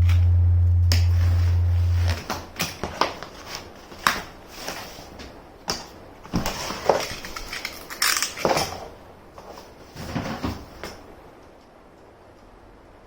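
A low held tone stops about two seconds in. Then come irregular clicks, taps and crinkling of objects being handled, fading out near the end.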